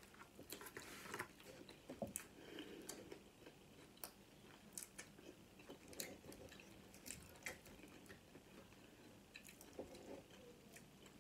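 Faint close-up chewing of crunchy fried chicken taquitos, with irregular sharp crunches and mouth sounds.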